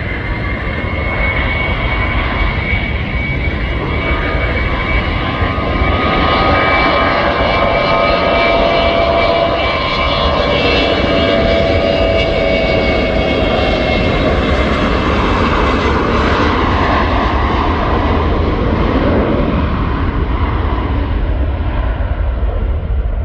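Boeing 717's two rear-mounted Rolls-Royce BR715 turbofans at takeoff power. The jet noise builds over the first few seconds, with whining tones that slide slowly down in pitch, and eases a little near the end.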